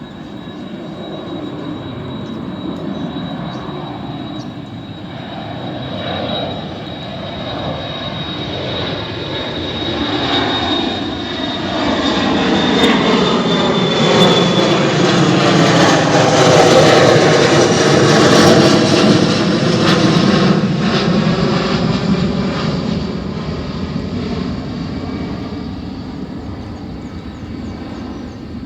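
Airliner taking off and passing close by. Its engine noise builds to a peak about halfway through, then fades, with a high whine that slowly drops in pitch as it goes past.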